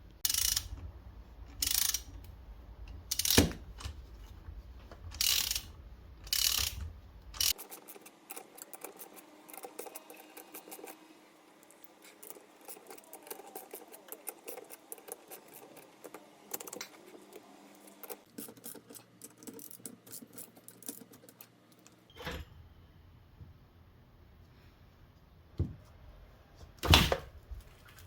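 Hand tools working on a car's front strut assembly: a socket ratchet clicking in short runs of strokes, then a spell of rapid clicking, with scattered lighter clicks and knocks of metal on metal.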